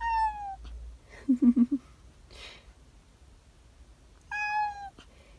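Black-and-white cat meowing from inside a plastic pet carrier: two drawn-out meows, the first at the start sliding down in pitch, the second about four seconds in held level. Between them comes a short stuttering run of low, loud sounds.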